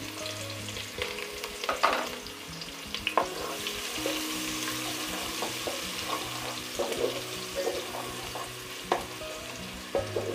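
Sliced onions sizzling in hot oil in a metal pot, stirred with a spatula that knocks and scrapes against the pot at intervals, the loudest knock about two seconds in.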